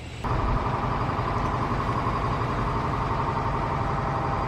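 A vehicle engine idling steadily, coming in abruptly about a quarter second in.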